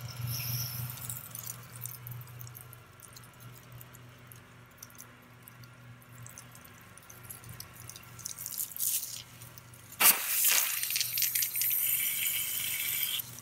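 Water running into an expandable garden hose from the outdoor faucet with a faint hiss over a low steady hum, then about ten seconds in the pistol-grip spray nozzle opens with a sudden loud hiss of spraying water lasting a few seconds.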